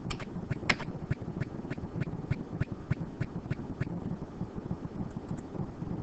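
Light, regular clicks about three a second, fading near the end, over a steady low room rumble.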